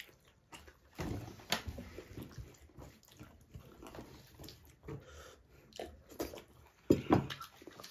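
Close-up eating sounds: irregular chewing, lip smacking and wet mouth clicks as chicken drumsticks and rice are eaten by hand, with gulps of water swallowed from a glass.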